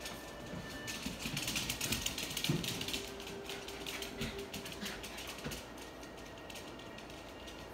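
Small dogs' claws clicking and pattering rapidly on a hard floor as they run and scuffle in play, thinning out after about five seconds.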